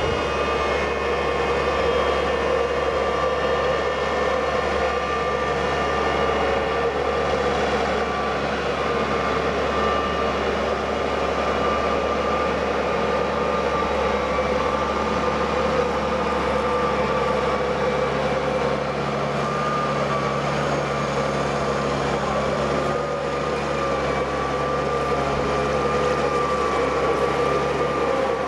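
Steady drone of small propellers, a low hum with several whining tones that waver slightly in pitch now and then.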